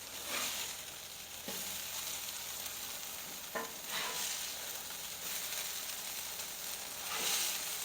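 Shredded hash browns sizzling in butter on a Blackstone flat-top griddle, a steady hiss. A spatula scrapes and taps on the griddle a few times, sharpest about one and a half and three and a half seconds in.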